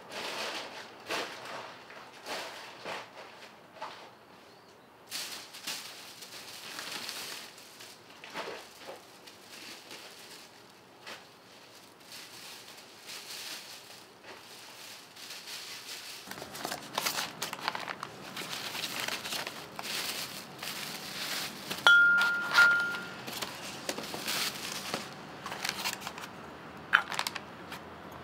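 Plastic shopping bag and crumpled kraft paper rustling and crinkling in quick irregular crackles as things are unpacked and handled. A short ringing clink stands out about two-thirds of the way through.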